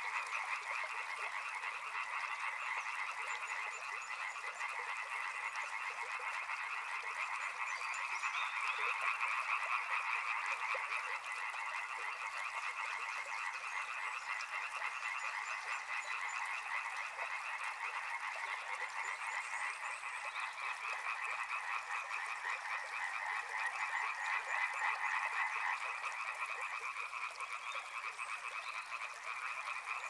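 Many frogs calling at once in a dense, steady chorus of rapidly pulsing calls, with no break or change.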